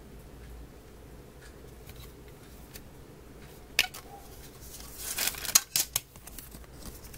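Clear plastic CD jewel case being handled and opened: one sharp plastic click a little before four seconds in, then a quick cluster of clacks and rustles from about five to six seconds in as the case is worked open and the paper booklet is pulled out.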